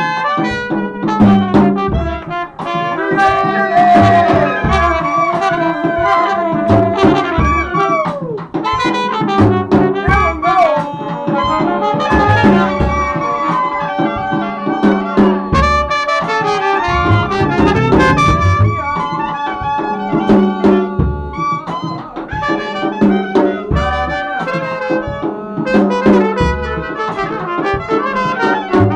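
Live small jazz combo: a trumpet plays melodic lines with bends and slides over a steady, regularly plucked upright bass, with drums keeping time.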